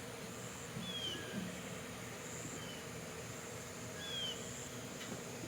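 Birds chirping: three short, slightly falling chirps spaced about a second and a half apart, over a faint steady outdoor background.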